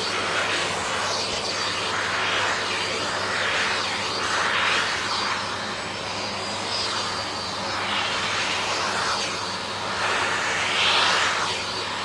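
Vacuum cleaner running steadily while its nozzle is drawn over a dog's fur, a constant motor hum under a rushing hiss that swells and eases every couple of seconds.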